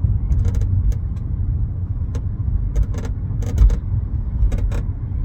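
Road rumble inside the cabin of a moving 2017 Chevrolet Bolt, with short, irregular creaks and ticks from the rear hatch. The owner blames the hatch shifting on its bump stops and latch.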